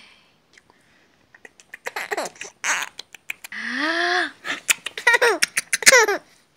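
Mother and infant kissing and playing: soft lip smacks and breathy sounds, then a long rising squeal and a run of short giggles with more kissing smacks in the second half.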